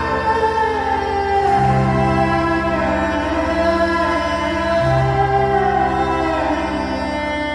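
Slow ambient music with choir-like voices held over deep bass notes, the bass changing pitch twice.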